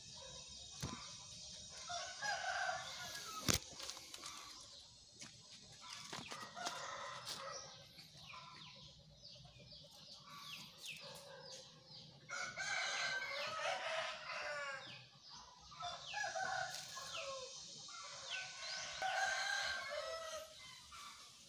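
Chickens clucking and a rooster crowing, mixed with higher bird chirps. A single sharp knock comes about three and a half seconds in.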